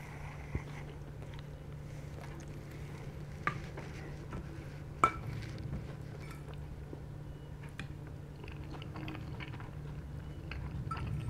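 Close-up chewing of a mouthful of pasta, with soft wet mouth sounds, over a steady low hum. Three sharp clinks of a metal fork and spoon against a ceramic plate, the loudest about five seconds in.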